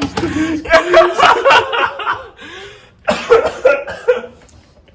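A man laughing and coughing, in two loud spells with a short pause between.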